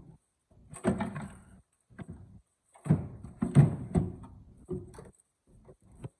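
Clunks and scraping of the car's intake plenum being worked loose and handled after its bolts have come out, in several separate bursts with short gaps between them.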